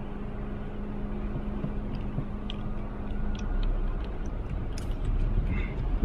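Outdoor ambience: a steady low rumble with a constant low hum, and scattered short high clicks between about two and five seconds in.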